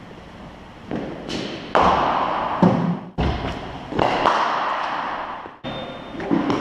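Several sharp knocks of a leather cricket ball being struck by a bat and bouncing on the synthetic pitch. Each knock rings on in the echo of a large indoor hall.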